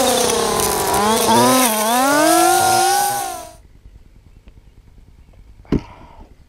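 String trimmer running hard, its pitch dipping and rising as the line cuts through long grass; it cuts off abruptly a little past halfway. A single sharp knock follows near the end.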